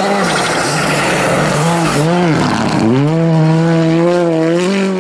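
Rally car engine at high revs as the car goes by on a snow stage, with a rushing noise from the tyres and thrown snow in the first half. Around two seconds in the revs rise and fall quickly a few times, then from about three seconds the engine holds a steady, high-pitched note.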